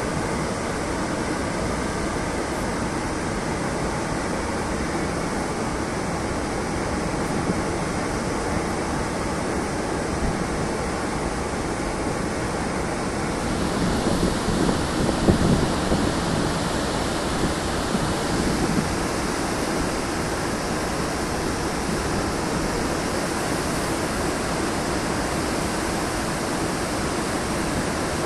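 Heavy rushing water, a steady wash of noise whose tone shifts slightly about halfway through and again a few seconds later.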